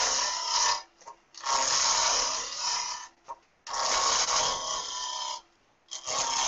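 Turning tool cutting a cocobolo duck-call blank spinning on a wood lathe at about 1800 rpm: a hissing, scraping cut that comes in four stretches of about a second and a half. The sound drops out abruptly between them.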